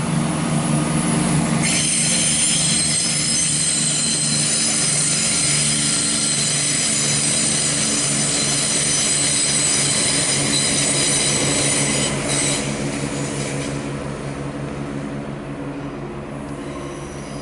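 CrossCountry Class 170 Turbostar diesel multiple unit passing, its engines running steadily under a high-pitched wheel squeal. The squeal sets in about two seconds in and stops about twelve seconds in, after which the train's sound fades as it draws away.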